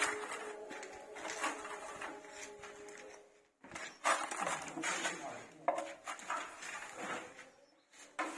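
Metal putty blade scraping wall putty smooth on a plastered wall, in a run of uneven strokes with a brief break about three and a half seconds in.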